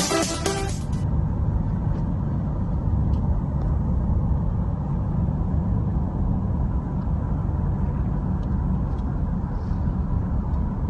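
Steady, even road and engine rumble heard inside the cabin of a moving car. Electronic music cuts off about a second in.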